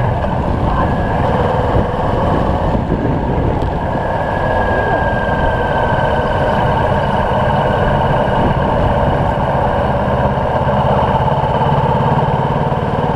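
Motorcycle on the move at riding speed: a steady rush of wind over the microphone, with the KTM 1290 Super Duke GT's V-twin engine running underneath.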